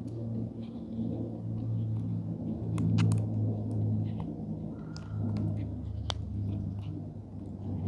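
Plastic fidget toys handled, giving scattered sharp clicks and taps at irregular moments over a steady low hum.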